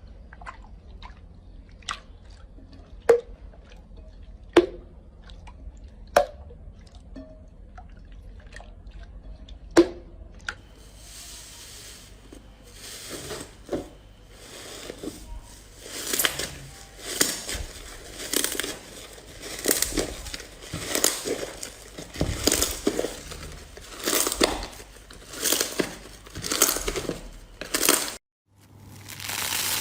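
Slime being played with by hand: scattered sharp pops in the first ten seconds, then a run of crunchy squishes, about one a second, broken by a brief cut near the end.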